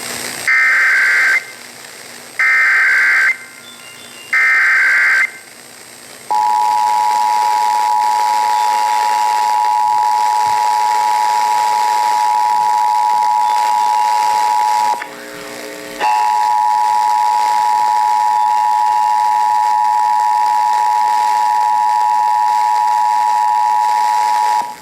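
Emergency Alert System test: three one-second bursts of the SAME digital header data, then the steady EAS two-tone attention signal. The attention signal drops out for about a second midway.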